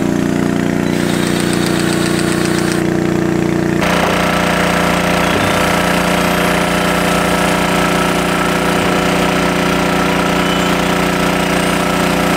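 Excavator's diesel engine idling steadily. Its tone changes abruptly about four seconds in.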